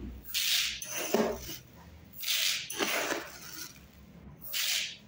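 Dry rice poured from a glass into a bucket, a glassful at a time: about four short rushes of grains a second or two apart.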